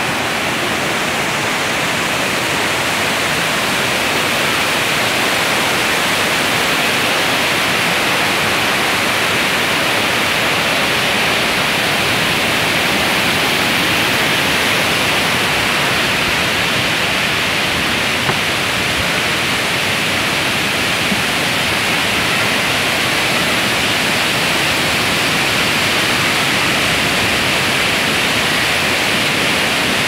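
Water rushing over a series of low, tiered waterfall cascades: a loud, steady, even rush of whitewater that does not change.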